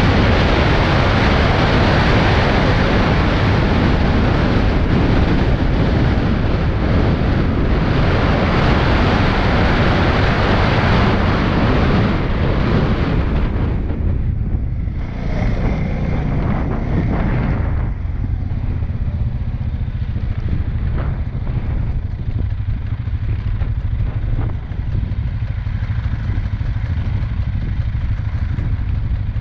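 CFMOTO CFORCE 625 ATV's single-cylinder engine running at speed under heavy wind noise on the microphone. About halfway through the rider slows, the wind drops away, and a low engine rumble at low speed is left.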